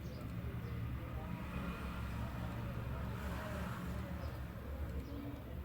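Steady low background rumble, with a hiss that swells and fades in the middle.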